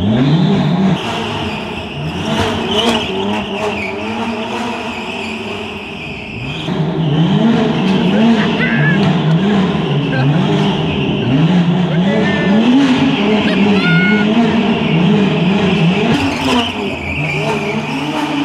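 BMW M2 Competition's tuned S55 twin-turbo straight-six, heard inside the cabin, surging up and down over and over, about once a second, while the tyres skid and squeal on the garage floor.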